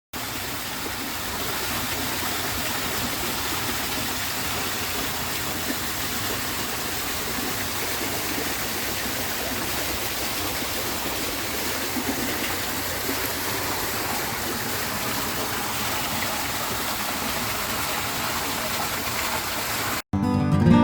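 Water from a decorative garden waterfall splashing and rushing steadily; the sound cuts off suddenly near the end.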